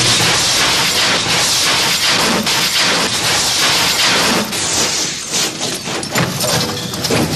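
A car rolling over and sliding on its roof along asphalt: a loud, continuous grinding scrape of sheet metal on the road with crunching impacts and breaking glass.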